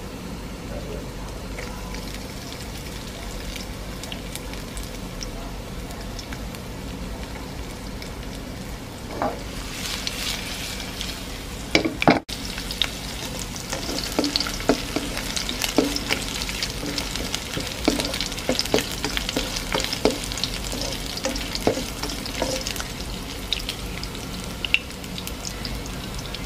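Chopped ginger and garlic frying in hot oil with dried red chillies in a nonstick wok. A steady sizzle grows louder about ten seconds in, with a spatula scraping and tapping against the pan as it is stirred.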